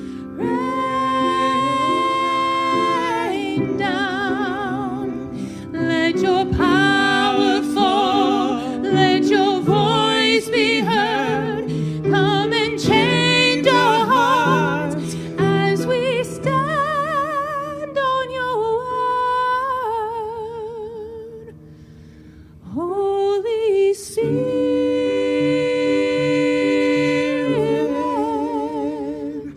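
Solo voice singing a slow worship song with wide vibrato, over held accompaniment chords, easing off briefly about two-thirds of the way through before picking up again.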